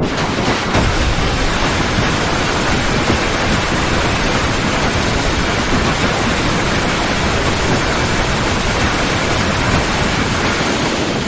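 Loud, steady rushing noise with no pitch, cutting in abruptly and holding level throughout: a sustained effect from a Destoroyah monster sound set, not a roar.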